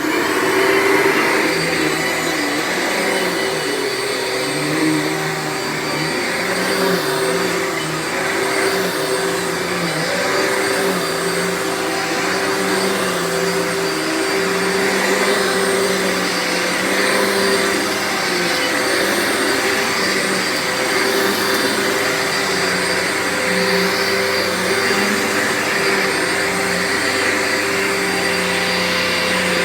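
Dirt Devil Featherlite upright vacuum cleaner switched on and running loud while vacuuming carpet: a steady motor whine over a lower hum that wavers up and down. It has freshly redone bearings and a new belt.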